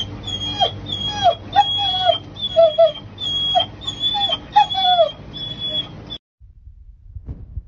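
German Shepherd whining: a run of short, falling whimpers, about two a second, over a steady low hum; they stop abruptly about six seconds in.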